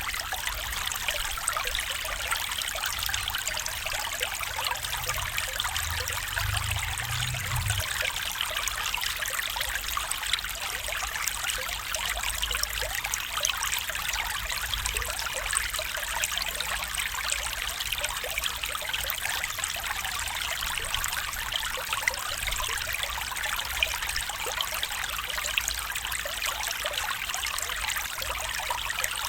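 Stream water flowing and trickling steadily, with a faint low rumble about five to eight seconds in.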